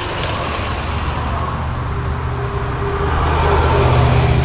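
Jigsaw running steadily as it cuts a circular hole through a steel body panel, growing a little louder about three seconds in.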